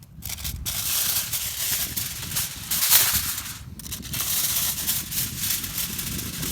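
Crinkly food wrapping being handled, a dry rustling crackle that stops briefly twice.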